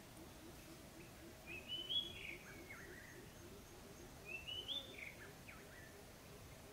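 A wild bird singing two short warbled phrases about two and a half seconds apart, each rising and then dropping in pitch.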